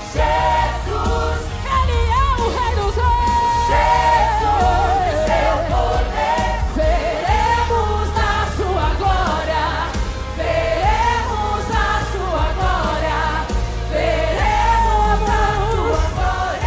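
Worship singing with a band: a lead voice sings long wavering runs over a steady bass.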